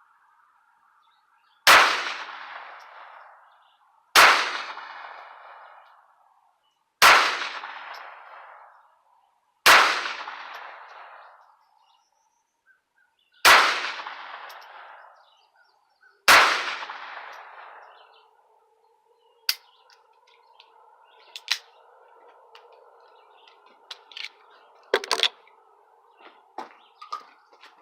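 .22 pistol fired six times at a slow, deliberate pace, each shot a sharp crack with a long echo trailing off. A few faint clicks follow near the end.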